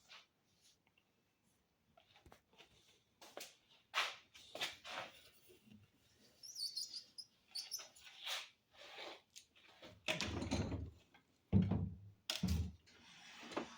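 Scattered knocks and scrapes of a homemade wood-and-metal tool cart being handled, with a short high squeak about six seconds in and two louder low scrapes near the end, as of its slide-less wooden drawer being worked.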